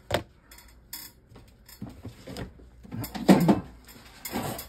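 Clinks and knocks of small objects being handled and set down on a work table, in short scattered bursts, the loudest a little past three seconds in.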